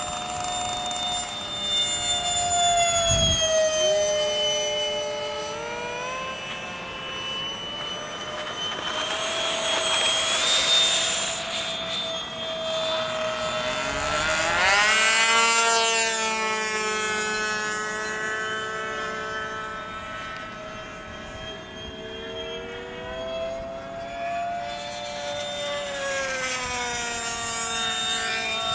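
Radio-controlled jet model flying overhead: a steady high engine whine that slides up and down in pitch as it circles, swelling on passes about a third and halfway in, with a quick pitch sweep on the closest pass.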